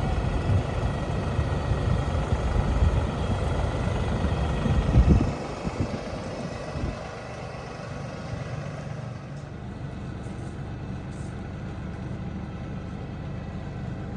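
LS compact tractor's diesel engine running as it drives, loud for the first five seconds or so, then steadier and quieter from about six seconds in.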